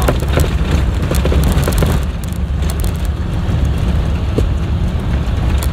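Converted school bus rolling down a rough gravel track: a steady, loud low rumble of engine and tyres, with scattered clicks and knocks from gravel and the bus body, most of them in the first couple of seconds.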